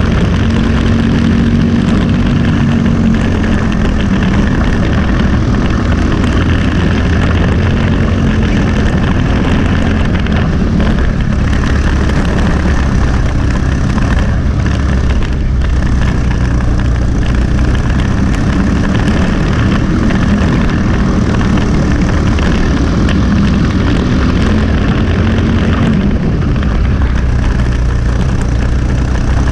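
Briggs & Stratton LO206 single-cylinder four-stroke kart engine running hard from on board at racing speed, its note rising and falling as the kart goes through the corners, with a brief dip twice in the middle.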